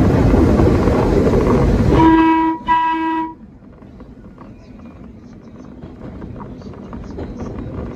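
Subway train running loud, then two short blasts of its horn about two seconds in, each a single steady pitch. Right after the second blast the running noise drops away abruptly, leaving faint scattered clicks.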